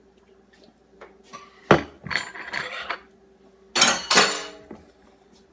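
Spoon and kitchen things clinking and knocking on a counter, with one sharp knock, then two loud harsh bursts about two seconds later.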